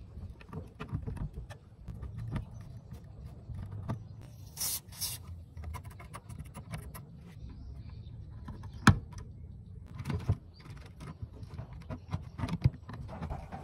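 Irregular small clicks, taps and knocks of a cassette deck's circuit board and plastic chassis being handled and fitted together, with a brief hiss about four and a half seconds in and a sharp knock near nine seconds.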